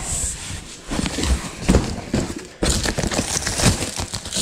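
A cardboard moving box being handled and set down with irregular knocks and thumps, then packing tape ripped off its lid.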